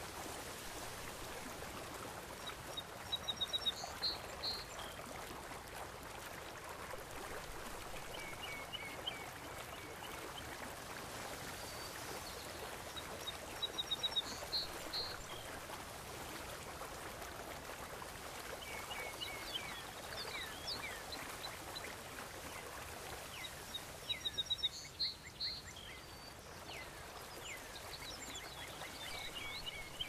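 Steady wash of sea water with bursts of rapid, high-pitched bird chirps every few seconds; the same run of chirps comes back about every ten seconds, as in a looped nature-sound track.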